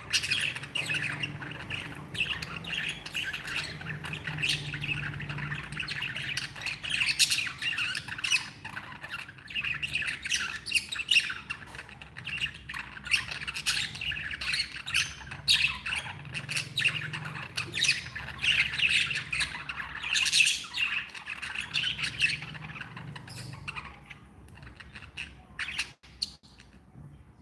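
Budgerigars chattering: a dense, continuous run of warbling chirps with sharper squawks now and then. The chatter thins out and grows quieter near the end.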